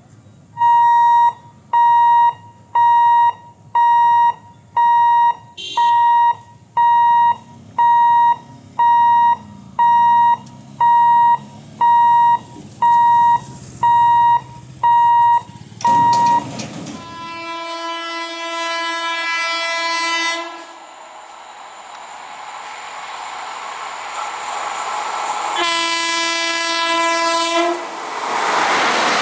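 Level-crossing warning beeper sounding about once a second, some sixteen times, then stopping. A train horn then sounds twice, a blast of about three seconds and a shorter one of about two seconds. Meanwhile the approaching train's running noise grows, and it turns loudest near the end as the train reaches the crossing.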